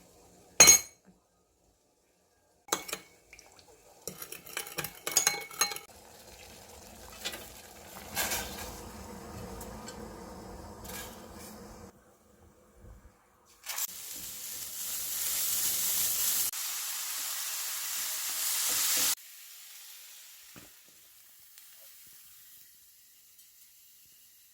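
Kitchen clatter of utensils and pan, with a few sharp knocks, then food sizzling in a hot frying pan for about five seconds; the sizzle stops suddenly and a fainter hiss follows.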